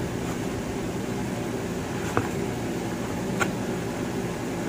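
Steady mechanical room hum like an air conditioner, with two light clicks about two and three and a half seconds in as the ring light's cable and its inline control are handled.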